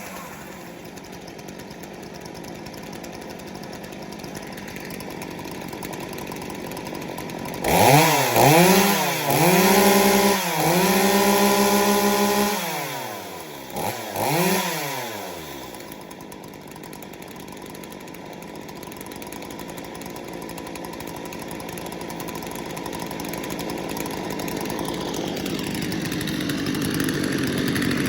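Stihl MS250 chainsaw's two-stroke engine idling, then revved up and down several times about eight seconds in and held at high revs for a couple of seconds before dropping back. Two short blips of the throttle follow, then it settles back to idle.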